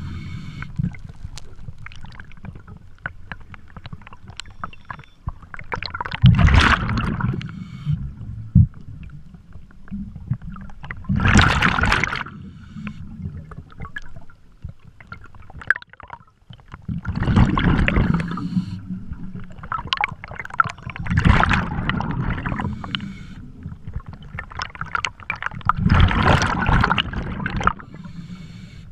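Scuba diver breathing underwater through a regulator: five loud gushes of exhaled bubbles, about one every five seconds, with quieter low rumbling between breaths.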